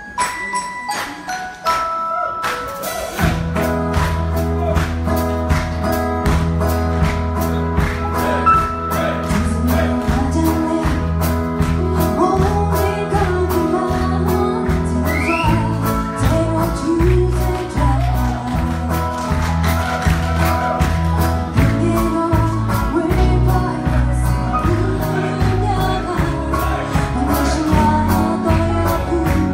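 Live band performing a song with a woman singing lead into a microphone, backed by acoustic and electric guitars and a drum kit. A few held notes open it, then the full band comes in about three seconds in, with deep bass notes and a steady drum beat.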